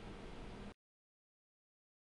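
Near silence: faint steady room hiss with a low hum, cutting off to dead silence about three-quarters of a second in.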